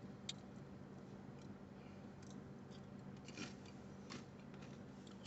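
Faint chewing with a few sharp crunchy clicks, a person eating chips, over a steady low hum.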